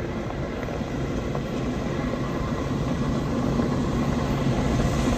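Steady low mechanical rumble of a large vehicle, growing gradually louder.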